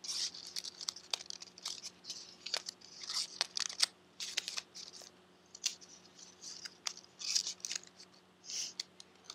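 Folded origami paper units rustling and crinkling as they are handled and slid into one another's pockets, with irregular short crisp clicks and scrapes of paper on paper.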